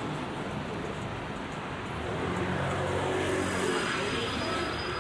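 City street traffic, with a motor vehicle's engine hum growing louder about halfway through as it drives past, then easing off.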